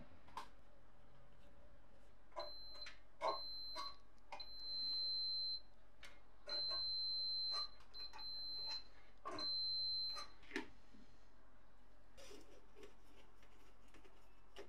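A high electronic beep sounding six times at uneven lengths, from about half a second to over a second each, with small clicks and knocks where each beep starts and stops.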